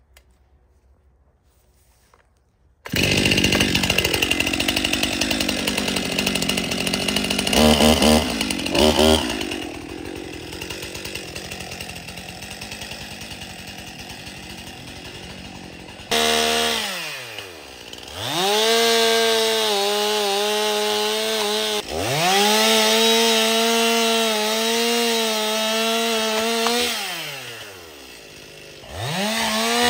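Stihl chainsaw cutting wood, starting suddenly about three seconds in. In the second half the engine note drops away and revs back up several times between cuts.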